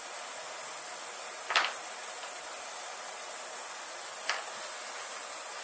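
Two light clicks of small metal carburetor parts being handled and set down on a workbench, the louder about a second and a half in and a fainter one about four seconds in, over a steady background hiss.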